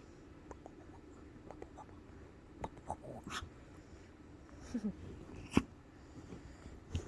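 A miniature dachshund sneezing, one sharp burst a little over halfway in, with a few softer short sounds before it.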